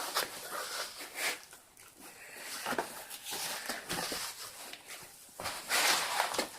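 Packaging being handled and opened: a run of scratchy rustles and light knocks, with a longer, louder rustle near the end.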